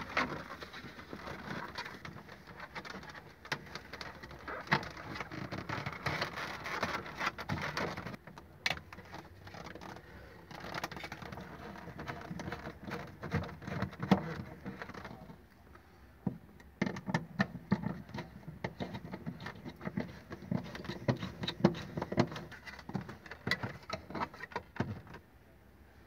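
Plastic refrigerator interior parts, a drawer and the vent cover, being handled and fitted by hand: irregular clicks, knocks and rattles, with short quieter pauses.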